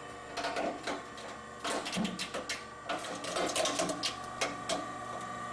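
SEM Model 0101 Sledgehammer hard drive crusher running its destruction cycle: a steady motor whine with many sharp cracks and clicks as its conical steel punch is forced into a hard drive.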